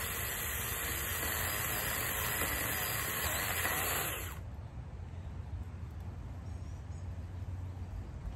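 JPOWTECH 4-inch cordless mini chainsaw running, its electric motor and chain giving a dense whirring with a faint high whine, stopping abruptly about four seconds in.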